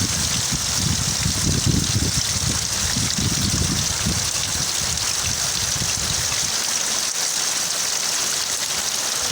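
Steady rainfall, an even hiss, with a low, uneven rumble underneath that fades out about halfway through.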